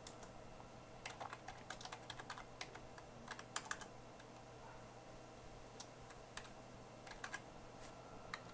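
Faint computer keyboard typing: short runs of keystrokes with pauses between them, as numbers are keyed into fields.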